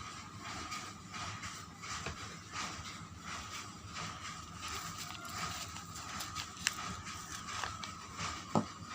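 Bars of soap being unwrapped by hand: packaging rustles and irregular light taps and clicks, with a couple of sharper clicks near the end, over a faint steady hum.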